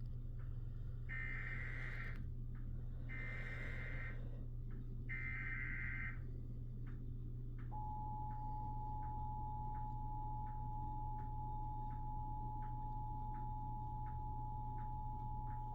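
Emergency Alert System required weekly test: three one-second bursts of screechy digital SAME header data, each about two seconds apart. About eight seconds in, the steady two-tone EAS attention signal (853 and 960 Hz) starts and holds.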